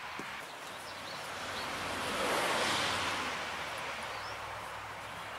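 Outdoor rushing noise that swells to a peak about halfway through and then fades, over a faint low hum.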